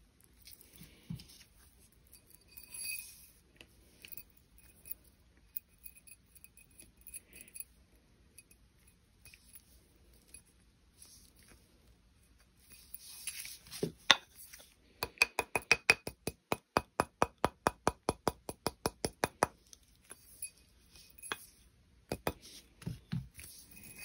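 Rawhide mallet tapping a copper wire ring on a steel ring mandrel: a fast, even run of light taps lasting about four seconds, after small metallic clinks of the copper beads and wire being handled.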